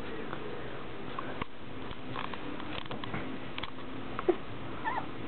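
Three-week-old golden retriever puppies shuffling and scrabbling about, making scattered small clicks and taps, with a few short, high whimpers near the end.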